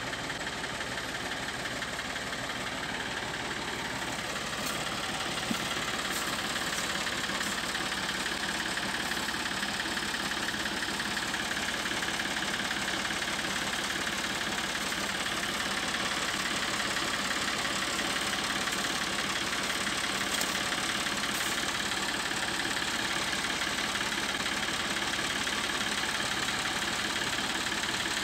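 Diesel engine running steadily at idle.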